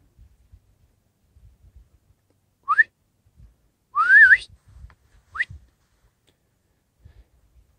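A person whistling three short rising whistles. The middle one is the longest and loudest, with a breathy hiss and a wavering end.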